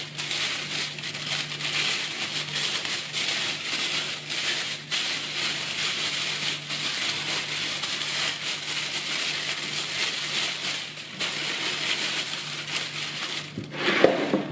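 Clear plastic roasting bag crinkling and rustling as a raw duck is worked into it and the film is smoothed around it, with a louder handling sound near the end.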